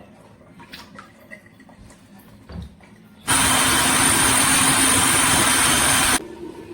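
A few light clicks, then an electric kitchen blender runs in one loud burst of about three seconds, starting and stopping abruptly, with a steady motor hum and whine, blending garlic, ginger and chili for the soup.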